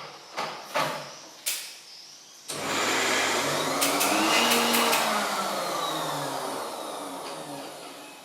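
A few sharp clicks, then a hair dryer starts with a sudden loud rush of air. Its motor pitch rises and then sinks as the sound slowly fades away.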